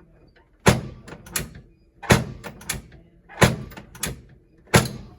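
Chiropractic drop table clunking down under repeated thrusts to the lower back: four loud knocks about a second and a half apart, each followed by a lighter knock.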